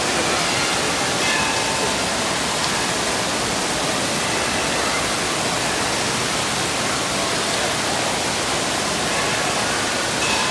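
Steady rush of splashing and falling water from a water park's splash-pool fountain jets and pouring water features.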